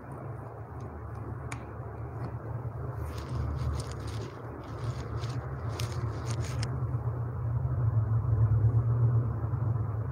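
A low, steady rumble that swells to its loudest about eight to nine seconds in, with faint clicks and hiss in the middle.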